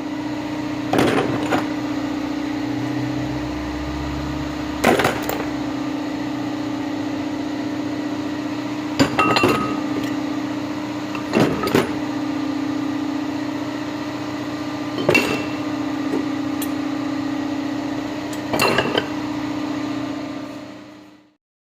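Metal clinks and knocks from hand tools on metal parts, coming every few seconds, over a steady mechanical hum.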